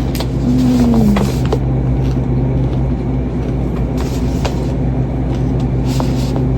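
Steady low mechanical hum with a short falling tone about half a second in and a few faint clicks.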